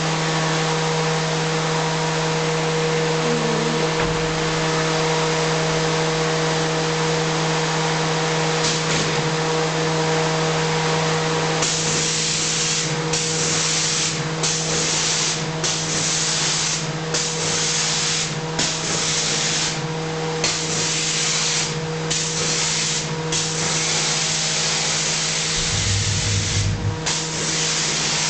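Aerosol spray can hissing in about ten short bursts, each around a second long, starting about halfway through, as lettering is sprayed onto a wall. A steady machine hum runs underneath throughout.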